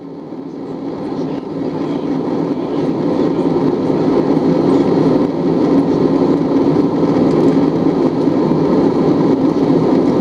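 Steady cabin noise of an Airbus A320-family jet airliner in cruise: engine and airflow noise heard from inside the cabin, fading up over the first few seconds and then holding steady.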